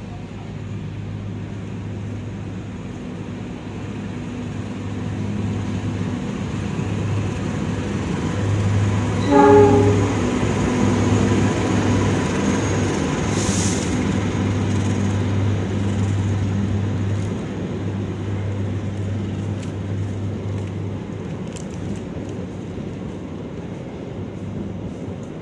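A GE CC 206 diesel-electric locomotive hauling an express train through a station without stopping. The diesel engine's steady drone builds as it nears, with a short horn blast about nine seconds in. The engine fades after about twenty seconds, while the carriages roll past with scattered wheel clicks.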